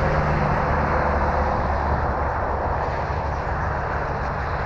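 Electric RC T-28 Trojan model plane flying a full-throttle pass, its motor and propeller a steady drone that slowly fades.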